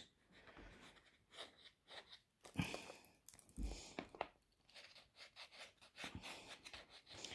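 Faint handling noises of a plastic glue tube and a foam bear being worked by hand: scattered soft clicks and rustles, with one louder tap about two and a half seconds in.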